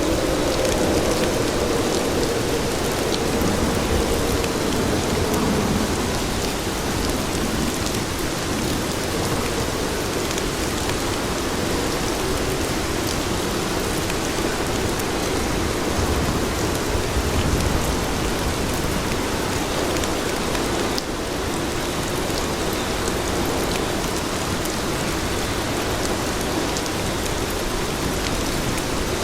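Steady rain falling on street pavement, an even hiss with a low band of sound underneath.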